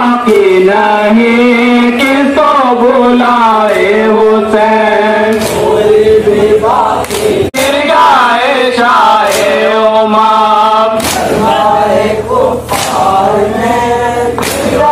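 Men chanting a nauha (Shia lament for Muharram) together. Sharp slaps of hands striking chests in matam cut through the chanting at intervals, more of them in the second half.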